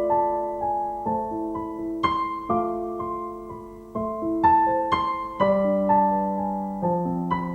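Slow, gentle solo piano music: single notes and chords struck about every half second to a second, each left to ring and fade.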